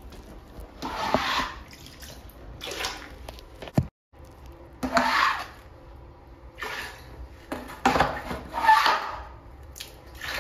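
Water splashing and sloshing in a series of short swishes in a small tiled room, the loudest near the end.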